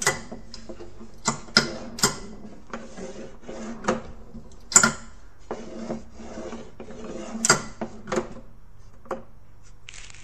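Steel pinball balls clicking and clacking as they are set by hand onto the steps of a prototype pinball staircase and knock against it, each other and the plywood playfield: a dozen or so sharp, separate clicks at irregular intervals over a low steady hum.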